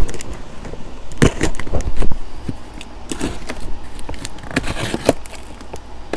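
A cardboard box of metal hairpin table legs and hardware being handled and opened: scattered knocks and scrapes with a light jangle of loose metal parts, the loudest knocks about a second and two seconds in.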